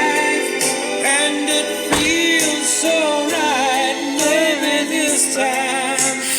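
Background music: a pop song with a male singing voice over guitar and a steady backing.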